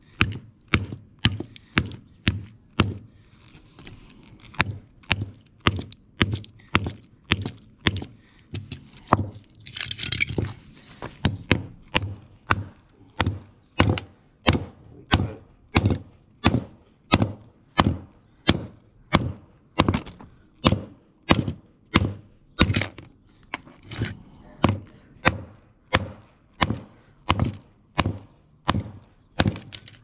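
Hammer blows on the laminated steel core of a microwave oven transformer, struck over and over at an even pace of about one and a half a second, to break the welds and knock the core apart so the copper winding can come out. About ten seconds in there is a short scraping rattle between the blows.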